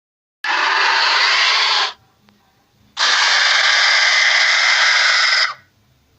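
Two made-up dinosaur call sound effects: harsh, hiss-like screeches without a clear pitch, the first about a second and a half long and the second, starting about three seconds in, about two and a half seconds long.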